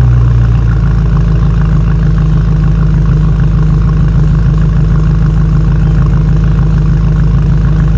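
2019 BMW M5 Competition's twin-turbo V8 idling steadily after a cold start, with its exhaust valves open in Sport Plus.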